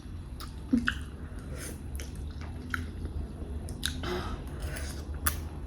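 Close-up chewing of Samyang cheese ramen noodles: wet mouth smacks and clicks at irregular intervals.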